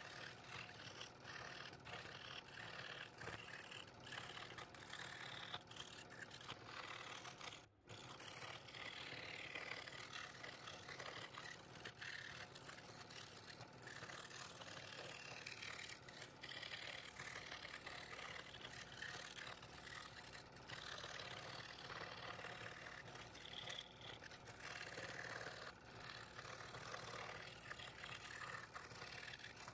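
Scroll saw running steadily with its blade cutting thin wood. The sound drops out briefly about eight seconds in.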